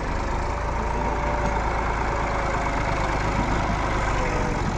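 Massey Ferguson 385 tractor's diesel engine running steadily as the tractor drives, pulling a trailer over soft earth.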